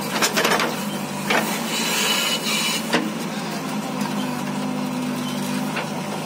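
JCB 3DX backhoe loader's diesel engine running steadily, with knocks and clatter in the first few seconds as the bucket tips soil into a tractor trailer, and a brief hiss about two seconds in.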